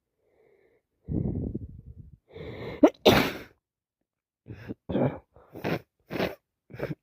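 A woman with a head cold sneezing: a rough breathy build-up and a rising 'ah', then one loud sneeze about three seconds in. A quick run of five shorter, sharp bursts follows, about half a second apart.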